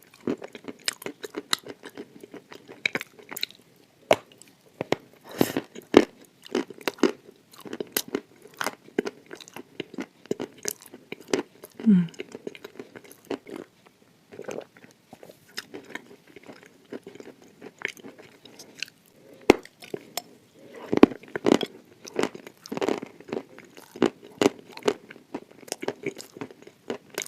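Dry chalk with clay paste being bitten and chewed close to the microphone: irregular sharp, crisp crunches and chewing, with clusters of quick bites.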